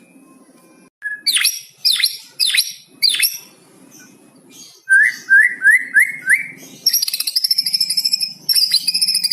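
White-rumped shama (murai batu) singing a varied phrase from a song that carries learned mimicry of the cucak cungkok. It gives four sharp downward-sweeping notes, then a run of five quick rising chirps, then breaks into a fast high trill about seven seconds in.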